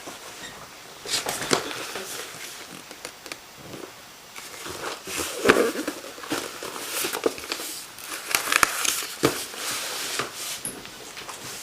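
Irregular crinkling and rustling with sharp little clicks, in bursts, like something being handled or crumpled close to the microphone.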